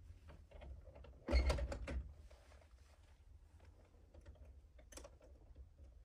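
A door being pulled shut with a short clatter of knocks and rattles, then a light click from its handle near the end.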